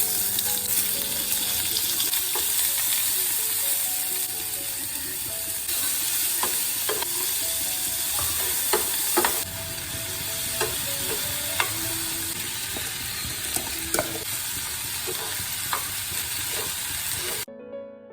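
Fried rice sizzling in a hot pan as it is stir-fried, with a spatula clicking and scraping against the pan now and then. The sizzle cuts off abruptly near the end.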